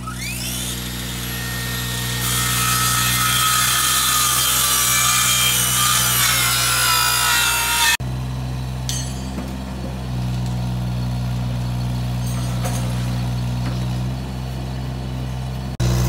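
A cordless angle grinder cutting steel reinforcing, a loud, hissy, high screech with whining tones that sag in pitch near the end, lasting about eight seconds over a steady engine hum. Then a Kubota U17-3 mini excavator's diesel engine runs steadily as it digs, with a clank or two from the bucket.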